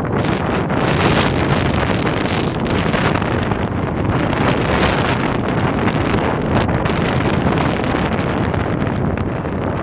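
Strong snowstorm wind blowing hard across the microphone: a loud, steady rush with small gusts.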